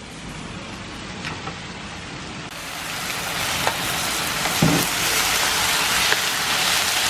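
Marinated beef with shallots and garlic stir-frying in hot oil in a pan: a steady sizzle that grows louder about two and a half seconds in.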